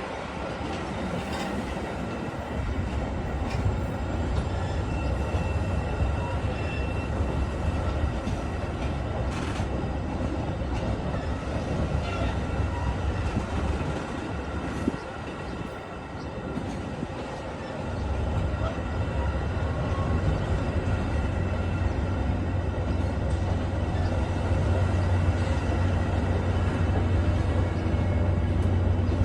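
Metra commuter train's steady low rumble, with a faint steady whine above it. The rumble eases off a little past halfway, then comes back louder.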